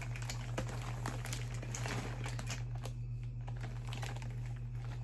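Plastic bags crinkling and rustling as fidget toys are rummaged through, with a short lull about three seconds in.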